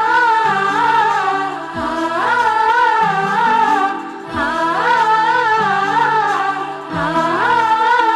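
A Telugu song with a melodic line that bends and wavers in phrases over sustained low accompaniment notes.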